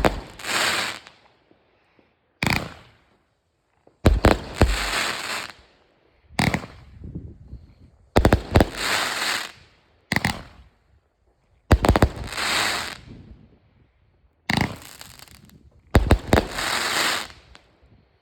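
Consumer fireworks going off in a series: about nine sharp bangs every couple of seconds, each followed by about a second of hissing crackle.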